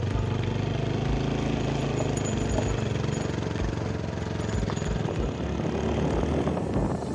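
Motorcycle engine running steadily while riding, with noise from the ride over it.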